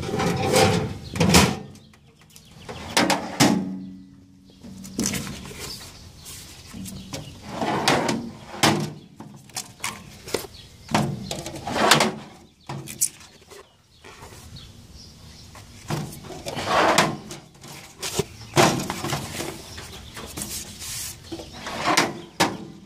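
Drawers of a steel Craftsman tool chest being pulled open and pushed shut one after another, each slide ending in a knock of metal on metal.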